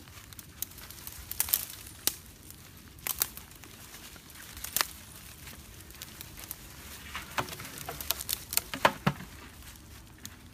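Irregular crackles, clicks and light knocks of dry leaves and twigs underfoot and a plastic pipe trap and plastic jug being handled, coming in scattered clusters and busiest near the end.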